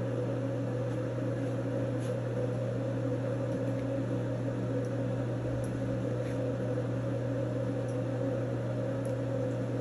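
Steady low hum of a running electric motor, such as a fan, unchanging throughout, with a few faint clicks over it.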